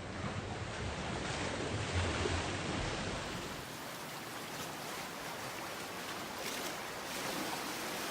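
Ocean surf washing steadily, with low wind rumble on the microphone for the first few seconds.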